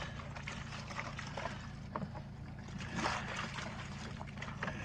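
Water sloshing and splashing in a plastic-lined crate as it is handled, with a louder splash about three seconds in and small knocks of the plastic crate, over a steady low hum.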